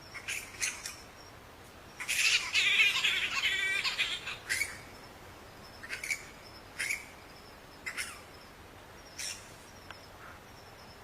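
Bats squeaking: short, high-pitched squeaks scattered through, with a dense burst of chittering from about two to four and a half seconds in that ends in a rapid rattling run.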